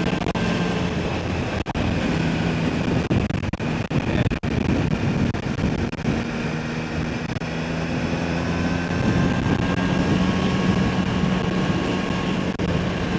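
Triumph Speed Triple's 1050 cc three-cylinder engine running steadily at expressway cruising speed, under a rush of wind on the microphone. The audio drops out briefly a few times between about one and a half and four and a half seconds in.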